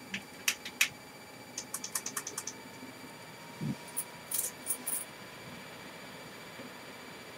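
Light plastic clicks and rattles from the K'NEX claw-game machine as it is handled: a few single clicks, a quick run of clicks about two seconds in, a soft knock, then more clicks, after which only a faint steady hum remains.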